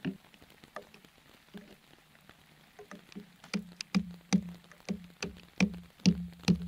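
A stone being used as a hammer to drive a thin metal tent peg into stony ground. After a few light taps, the strikes come about two a second from about halfway through, each with a short ring from the peg.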